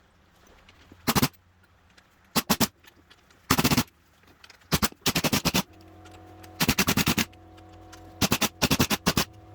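Impact wrench hammering in short bursts of rapid blows, about nine bursts, each a second or so apart. It is winding down the spring compressors on a Honda EK Civic front strut, taking the spring's load off the top nut.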